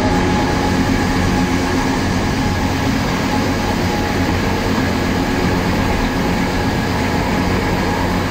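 Gornergrat rack railway train running, heard from on board: steady running noise of the electric railcar with a low hum and faint steady whining tones from the drive.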